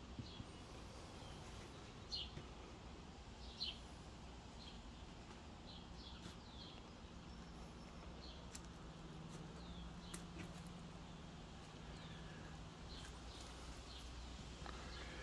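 Birds chirping faintly, short high calls every second or two, over quiet outdoor background noise with a low steady hum.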